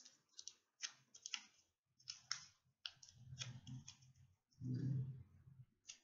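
Faint, scattered light clicks and taps at an irregular pace, with two short muffled low rumbles of handling noise, one a little past halfway and one near the end.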